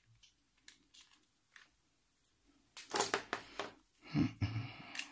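Handling noise from a plastic laptop battery pack and wire leads with crocodile clips: a few faint clicks, then a louder flurry of clicking and rustling about three seconds in and another about four seconds in.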